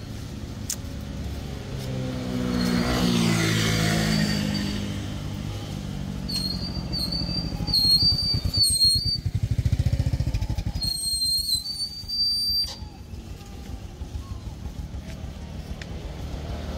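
Motor vehicles passing on a road, engines rising and falling in pitch as they go by, with a low rumble around the middle. A high thin whistling tone sounds twice in the middle.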